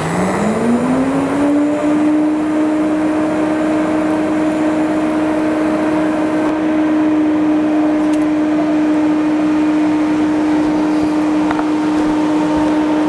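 DC TIG welding arc on 5 mm stainless plate at about 126 amps, struck with a high-frequency start: a sharp click, then a steady hum over a hiss. The hum rises in pitch over the first two seconds and then holds level.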